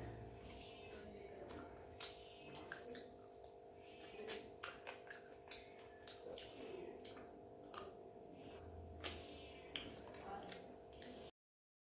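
Close-miked eating sounds: quick wet clicks and smacks of chewing, over a steady faint hum. The sound cuts off to dead silence near the end.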